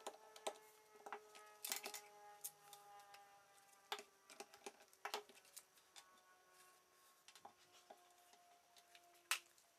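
Faint scattered clicks and taps of a screwdriver working small screws out of a mini PC's plastic case and of the screws being set down on a wooden tabletop. A few faint thin tones drift slowly down in pitch underneath.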